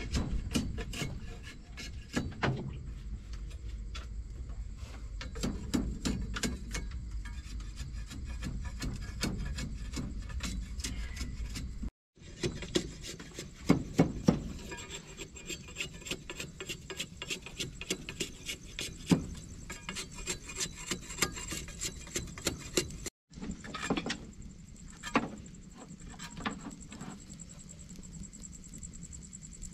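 Machete scraping and splitting thin bamboo strips: quick, repeated rasping strokes with clicks and a few sharper knocks.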